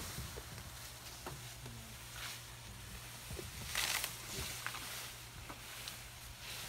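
Asian elephants feeding in tall grass close by: grass rustling and tearing as it is pulled up by trunk, with a few small snaps, and the loudest swishes about two and four seconds in.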